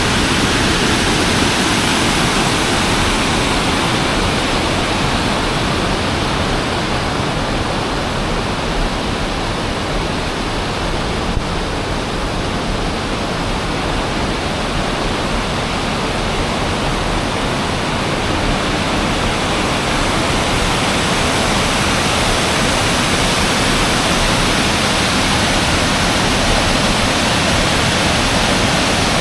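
Waterfall pouring, a loud steady rush of water without let-up, the falls churning after heavy rain.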